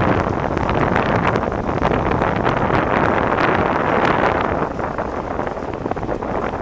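Wind buffeting the microphone of a camera moving at cycling speed: a steady rushing noise that eases off a little after about four and a half seconds.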